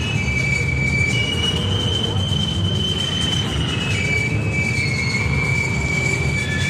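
V8 Hotstox stock-car engines running at low speed, a steady pulsing rumble as the cars roll round slowly under caution. Over it sit thin, high whistling tones that hold for a second or two and then step to another pitch.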